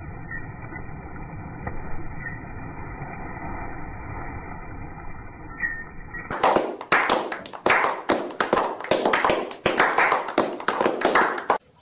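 A few people clapping, loud and uneven, starting about six seconds in. Before that there is only a muffled, steady background sound.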